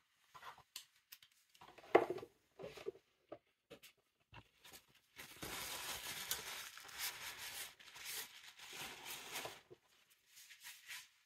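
Handling noises: scattered light clicks and a sharp knock about two seconds in, then about four seconds of crinkly rustling.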